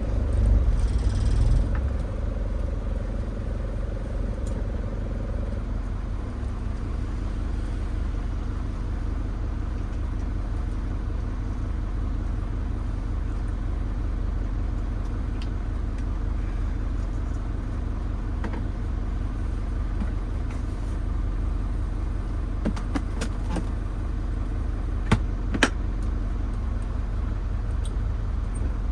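Steady low engine and road rumble from inside a bus on the move. A few sharp clicks or knocks come near the end.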